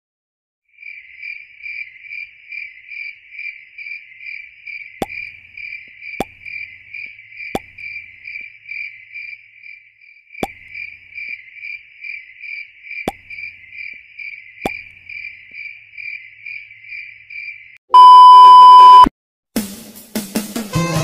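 Cricket-chirping sound effect, the comic 'crickets' cue for an awkward silence: even high chirps about twice a second, with six short plops among them. Near the end the chirps stop and a loud steady beep sounds for about a second, then music starts.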